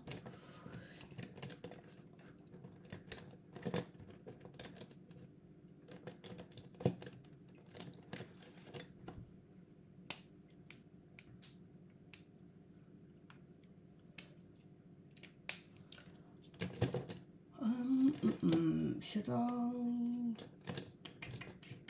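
Light, scattered clicks and taps of small objects handled on a desk, over a low steady room hum. Near the end a person's voice makes short wordless sounds, holding one note for about a second.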